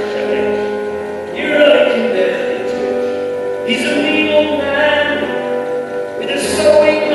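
Live acoustic music: a man singing long, drawn-out notes over acoustic guitar.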